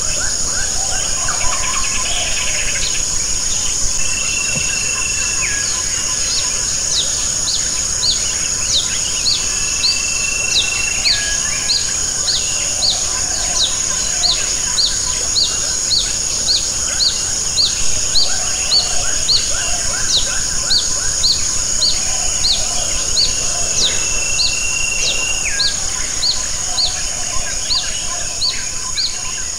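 Steady rain falling and dripping, under a constant high insect drone. A bird repeats short high chirps about one and a half times a second and three times gives a longer whistled note that steps down in pitch at its end.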